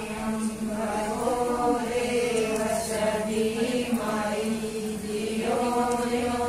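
Group of voices chanting havan mantras in unison, held on a nearly steady pitch with only slight rises and falls.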